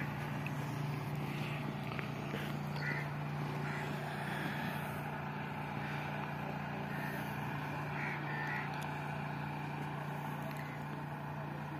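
Steady, unchanging low engine hum from a distant motor, with a few faint short chirps now and then.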